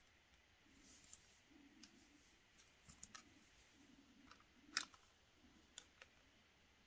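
Near silence with a few faint clicks and light taps of small things handled on a table top, the sharpest tap a little under five seconds in.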